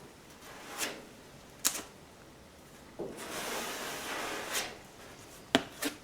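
A filler spreader scraping body filler across a car's steel body panel: a few short swipes, one longer scrape in the second half, and sharp clicks of the spreader tapping the panel, once about a second and a half in and twice near the end.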